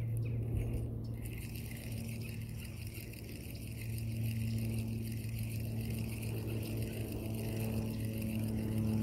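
A steady low mechanical hum, like a motor running, with a faint hiss that starts about a second in.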